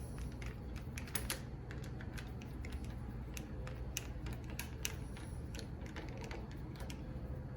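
Irregular small clicks and taps of metal door-latch hardware being handled and fitted into a door, a few a second.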